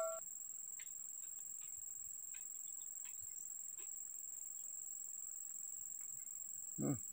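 Insects chirring in one steady, high-pitched drone over a quiet background, with a few faint ticks. A brief low voice-like sound comes near the end.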